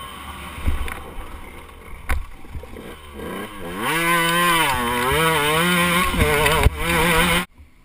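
KTM 125 two-stroke motocross bike engine heard from on board. It runs low for the first few seconds with a few sharp knocks, then revs hard with the pitch rising and falling through the throttle and gears, and cuts off suddenly near the end.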